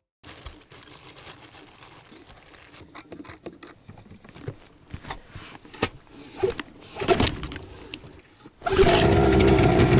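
Scattered light clicks and knocks, then a little under nine seconds in a two-stroke outboard motor starts loudly and runs steadily.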